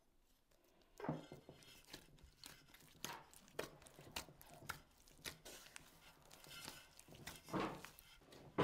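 Hands kneading and mixing soft dough in an enamel basin: irregular squishing and slapping, with the sharpest slaps about a second in and near the end.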